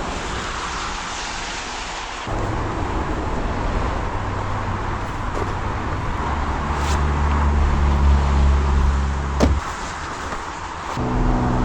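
A motorcycle engine running under a steady rushing noise, its pitch stepping up a couple of times, with a short sharp sound about nine seconds in.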